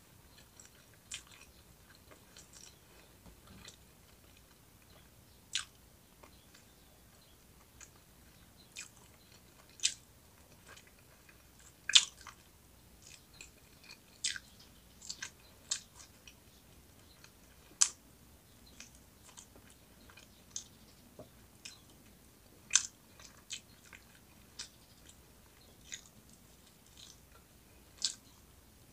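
A person chewing and biting into roast chicken wings, with irregular sharp crunchy clicks every second or two, the loudest about halfway through.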